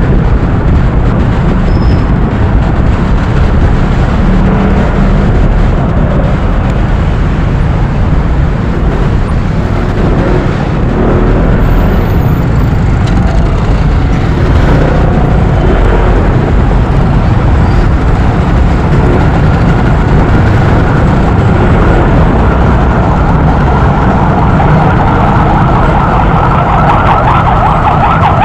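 Motorcycle riding in traffic heard through an action camera's mic: a steady, loud rumble of wind and engine noise. An emergency vehicle siren comes in with a wavering wail about twenty seconds in and grows louder toward the end.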